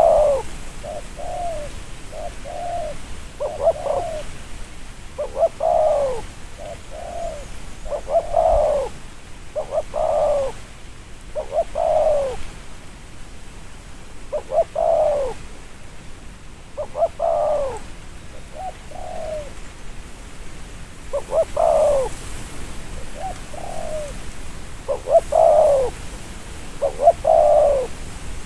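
Spotted dove cooing over and over in short repeated phrases of arching coo notes, with a softer short note between some of the phrases.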